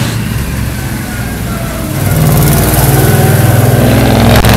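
Monster-truck school bus's engine running hard, getting louder about two seconds in as it revs up and holds high revs.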